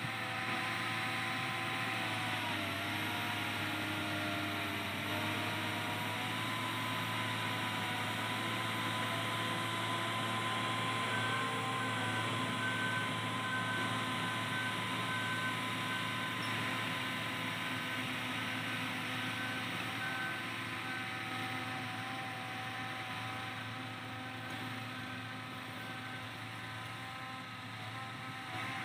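Crawler bulldozer's diesel engine running steadily as it pushes earth, its note dipping briefly a few seconds in and then recovering.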